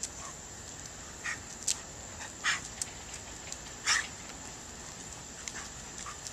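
A dog giving several short, sharp barks, the loudest two about two and a half and four seconds in.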